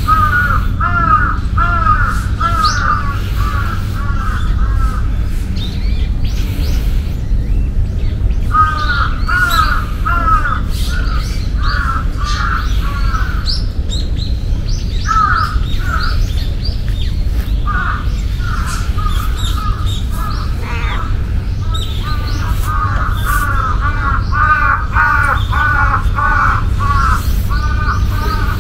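Bird calls in runs of repeated notes, about three a second, coming in several bouts with short gaps, over a steady low rumble.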